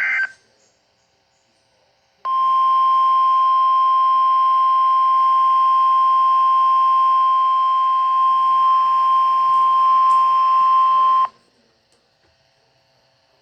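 The last instant of a SAME digital header burst, then NOAA Weather Radio's 1050 Hz warning alarm tone, sent as part of the Required Weekly Test. It is one steady high tone that comes on about two seconds in, lasts about nine seconds and cuts off suddenly.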